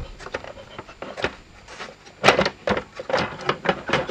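Hard plastic parts of a wind-up radio's case and winding-mechanism housing clicking and knocking as they are handled and worked loose by hand. A string of sharp clicks, sparse at first and coming thick and fast from about two seconds in.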